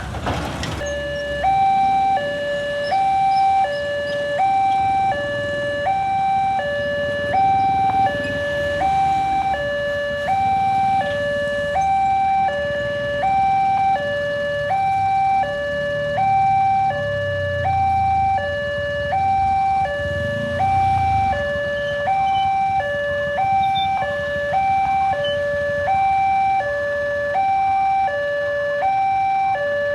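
Electronic level-crossing warning alarm sounding a steady two-tone high-low signal, each tone lasting about half a second, repeating without change: the warning that a train is approaching. A low engine rumble from waiting vehicles rises and falls in the second half.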